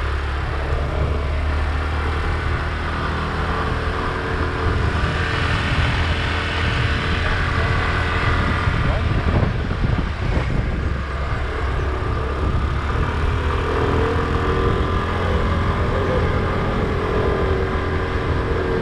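Motor scooter engine running steadily while riding, with a strong low wind rumble on the microphone. Another scooter passes the other way about halfway through.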